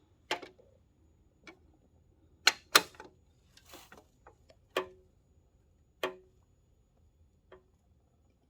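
Scattered sharp clicks and knocks, about six, with two close together near three seconds in and a short rustle near four seconds: a Harley Tombstone LED light piece being handled and test-fitted into its mounting on the motorcycle.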